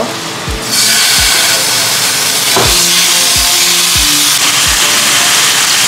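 Slices of red meat laid into hot oil in a non-stick frying pan, sizzling loudly from about a second in. Background music with a steady thumping beat plays underneath.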